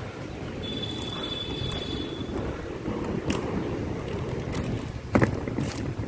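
Inline skate wheels rolling steadily over rough asphalt, a continuous rumble, with wind on the microphone. A couple of sharp clicks come through, the loudest about five seconds in.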